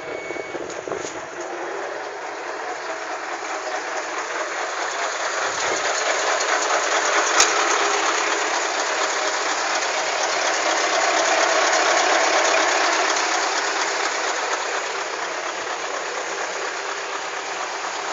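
Heavy diesel machinery running steadily, a coarse mechanical noise that grows louder toward the middle and then eases off, with one sharp click about seven seconds in.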